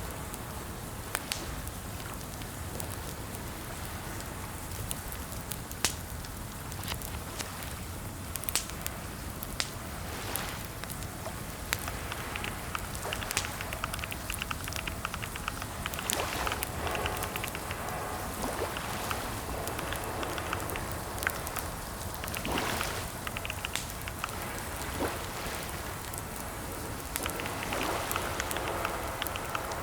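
Computer keyboard typing: bursts of rapid key clicks that start and stop, with scattered single sharper key strikes, over a steady background hiss.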